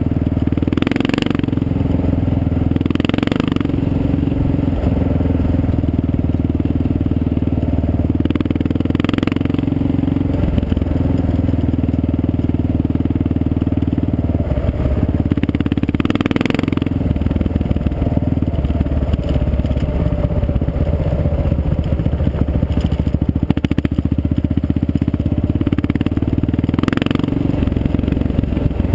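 Motorcycle engine running steadily at road speed while the bike rides over gravel, with the tyres crunching on the loose surface and a handful of brief louder clattering rushes.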